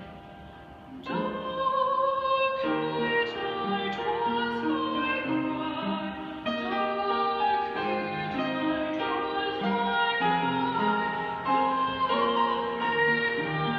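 A woman singing a solo concert spiritual with piano accompaniment. The piano plays alone at first, and the voice comes in about a second in, holding long notes over the chords.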